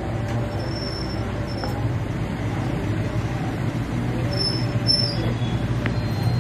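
Stone pestle grinding dry herbal powder in an oblong stone mortar, a steady scrape of stone on stone without pause.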